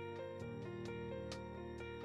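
Soft instrumental background music, with a new note struck every half second or so.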